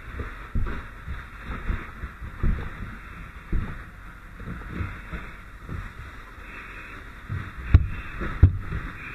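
Firefighter's gear and helmet-mounted camera bumping while moving through a smoke-filled building: irregular muffled thumps about once a second over a steady hiss, with two sharper knocks near the end.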